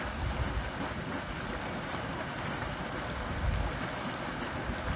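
Mud Volcano, a steaming mud pool in Yellowstone, venting steam: a steady rush with heavy low surges, mixed with wind on the microphone.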